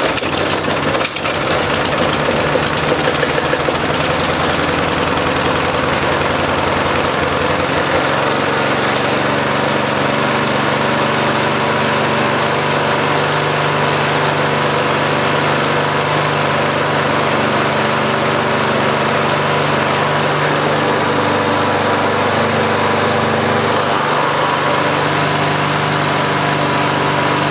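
Briggs & Stratton 35 Classic lawnmower engine pull-started, catching at once and running. It runs unevenly for the first several seconds, then settles into a steady run about eight seconds in.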